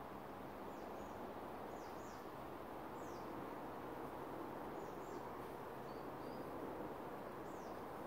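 Small birds giving short, high, falling chirps, about ten scattered through, over a steady rushing background noise.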